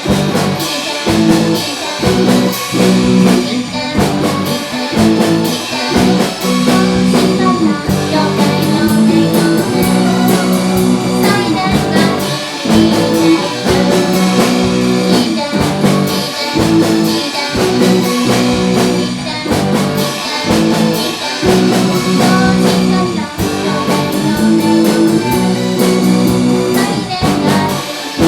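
A live rock band playing: guitar over a drum kit keeping a steady beat.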